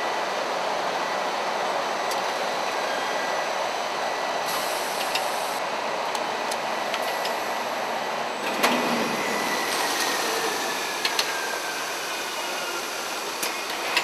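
Thimon film-hooding pallet packaging machine running: a steady mechanical whir and hiss, with a few sharp clicks from its moving parts and a faint tone that slowly falls in pitch about ten seconds in.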